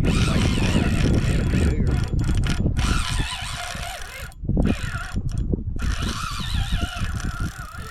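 Wind buffeting the microphone as a loud low rumble, over the mechanical whirring of a fishing reel being worked against a large red drum.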